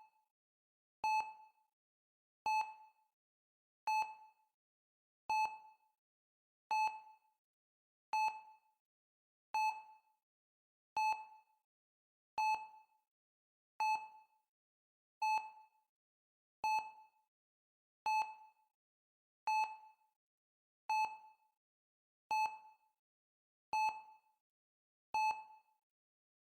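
Heart rate monitor beeping steadily, one short tone about every one and a half seconds that dies away quickly, each beep marking a heartbeat at about 40 a minute.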